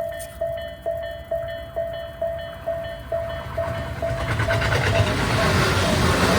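Japanese railway level-crossing warning bell ringing its electronic 'kan-kan' tone, about two strikes a second. About four seconds in, a train arrives and passes through the crossing, its rumble and wheel rattle drowning out the bell.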